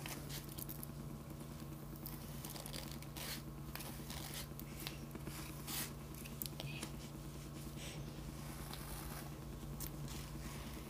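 Hairbrush bristles drawn through long hair in short, scratchy strokes, over a steady low hum.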